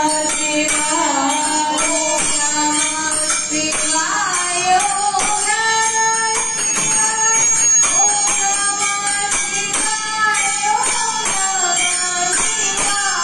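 Hindu devotional song: a sung melody that glides up and down over a steady jingling percussion beat.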